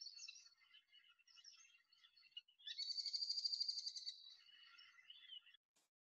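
Recorded merlin calling: a fast chattering run of sharp high notes, lasting about a second and a half in the middle, among fainter scattered high chirps.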